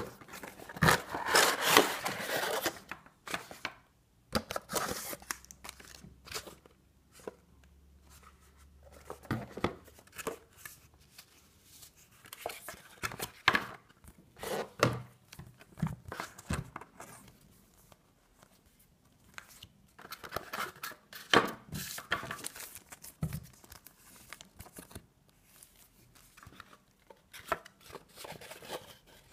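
Product packaging being opened and handled: irregular tearing, crinkling and rustling of cardboard and plastic, with scattered sharp clicks and pauses between bouts.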